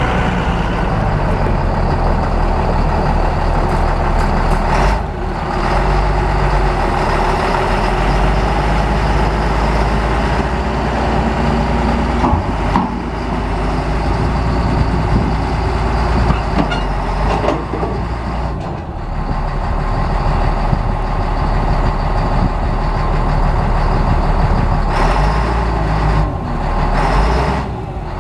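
Caterpillar 140G motor grader's diesel engine running steadily, its note dipping briefly a few times while the hydraulics raise and angle the front plow blade.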